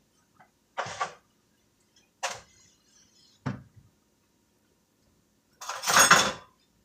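A few separate clinks and scrapes of a fork against a skillet on a stovetop, then a louder, longer rush of noise lasting under a second near the end.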